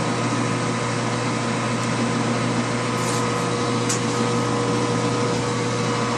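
Lathe flood coolant pump motor running with a steady electric hum while it slowly fills the supply pipe, the coolant not yet at the nozzle. Two faint ticks about three and four seconds in.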